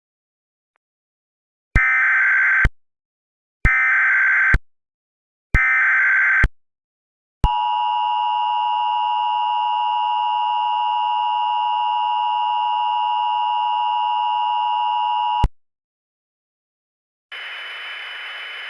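Emergency Alert System tones: three short screechy digital data bursts (the SAME header) about a second apart, then the steady two-tone EAS attention signal held for about eight seconds before cutting off abruptly. Near the end a steady radio hiss comes in ahead of the spoken alert.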